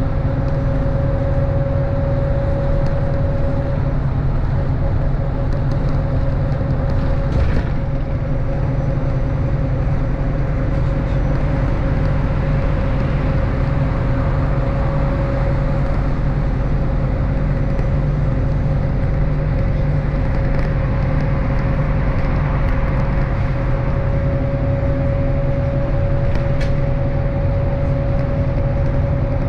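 MAZ-103.486 city bus heard from inside the cabin while driving at steady speed: a constant low engine and road rumble with a thin, steady high whine running over it.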